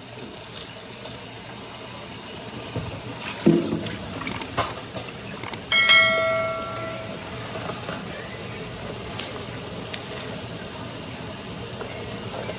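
Kitchen cookware sounds over a steady hiss: a few short knocks, then about six seconds in a single ringing metallic strike that dies away over about a second.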